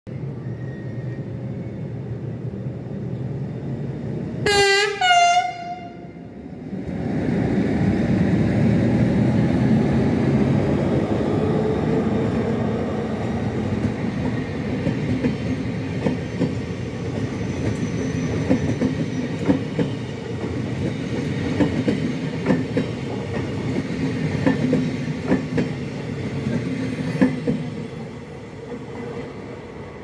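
ÖBB class 1144 electric locomotive sounding its Makrofon horn in two short blasts, a lower note then a higher one, about four and a half seconds in. It then runs by with a loud steady hum of its cooling blowers, the noise behind its 'Alpenstaubsauger' (Alpine vacuum cleaner) nickname. The push-pull coaches follow, their wheels clacking over the rail joints and points, and the sound fades as the train pulls away.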